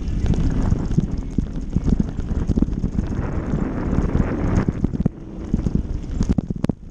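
Bicycle rattling and clattering as it rolls fast down a rough dirt trail, its tyres running over dirt and rocks, with a rapid, uneven run of knocks and wind on the microphone. There is a brief lull just after the middle and a few sharp clicks near the end.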